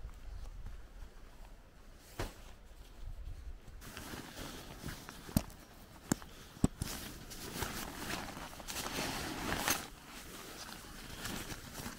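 Footsteps on grass, then a nylon Quechua tent bag being handled: rustling fabric and a few sharp clicks as its plastic strap buckles are unclipped, followed by more rustling as the bag is pulled open.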